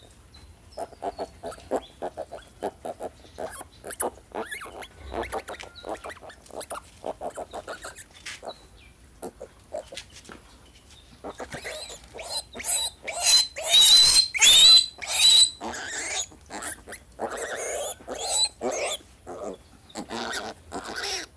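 Piglet crying out while held for castration: rapid short grunts, several a second, for the first several seconds, then loud, high squealing for a few seconds past the middle, and more grunts and squeals near the end.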